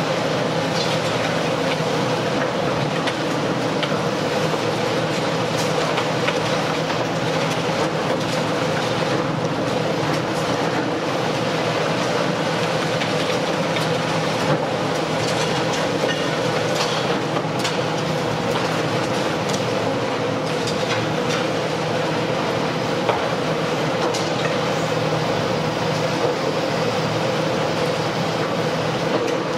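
Long-reach demolition excavator running with a steady engine and hydraulic drone while its crusher jaws chew into reinforced concrete, with frequent cracks and the clatter of falling concrete debris.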